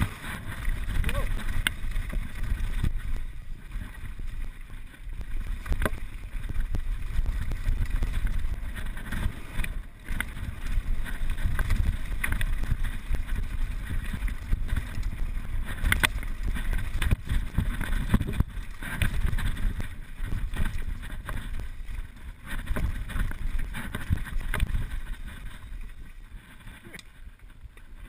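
Mountain bike riding fast down a gravel trail: wind rushing over the microphone, tyre noise on loose ground and the bike rattling, with many sharp knocks over bumps.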